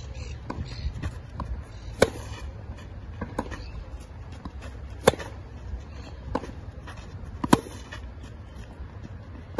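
Tennis ball struck back and forth in a baseline rally on a clay court: sharp racket-on-ball pops, the loudest from the near player's forehands about two, five and seven and a half seconds in, with fainter hits and bounces from the far end between them, over a low steady rumble.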